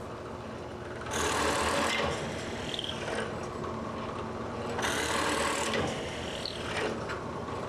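Drill press running at 1,000 RPM with an X29 brad point drill bit boring into black walnut under a constant weighted feed. The cutting noise starts about a second in and swells again around five seconds, over the steady hum of the press.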